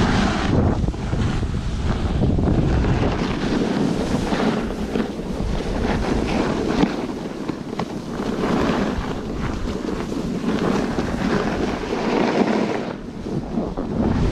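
Rushing noise of a snowboard run: wind buffeting an action camera's microphone over the hiss of the board sliding on snow. It swells and eases unevenly through the run.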